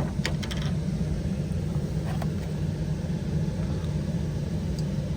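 Steady low hum of a running HVAC unit, with a few short clicks and knocks of handling in the first second and again about two seconds in.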